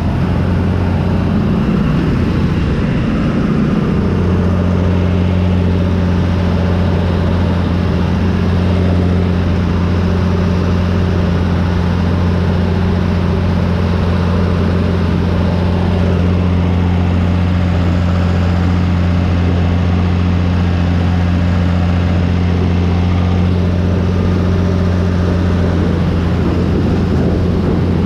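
John Deere 3350 tractor's diesel engine running under load, pulling and driving a Zmaj 222 corn picker through standing corn, heard from the cab. The engine note wavers in the first few seconds, then holds steady.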